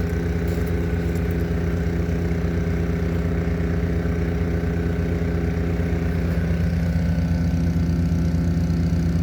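Engine-driven vacuum pump running steadily with an even pulse, drawing vacuum on a newly built manhole before the gauge reaches 10 inches of mercury. Its note shifts slightly for a moment about six and a half seconds in.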